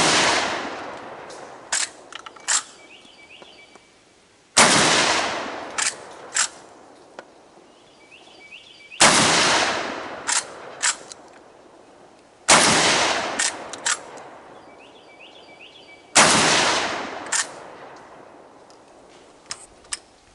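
Five 12-gauge shotgun blasts from a Century Arms PW87 lever-action shotgun, about four seconds apart, each with a long trailing echo. Between the shots come short metallic clacks as the lever is worked to eject the spent shell and chamber the next round.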